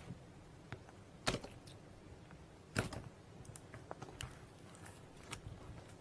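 A few scattered light clicks and taps, the two loudest about a second and a half apart, over a faint background.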